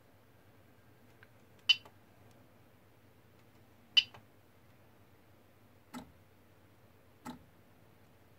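Sharp clicks from a CoreXY 3D printer's carriage and motion system as it makes quick moves against a dial gauge in a repeatability test. Two loud clicks come about two seconds apart, then two fainter ones, over a low steady hum.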